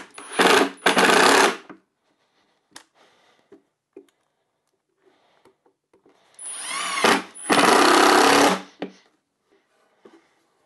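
Cordless impact driver driving wood screws in bursts: three short runs in the first two seconds, then a spin-up into a longer run of about two seconds past the middle, with light clicks and knocks between as screws and tool are repositioned.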